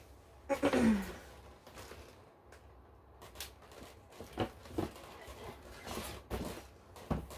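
Objects being handled: scattered light taps, knocks and rustles. Near the start there is a short sound that falls in pitch, and it is the loudest thing heard.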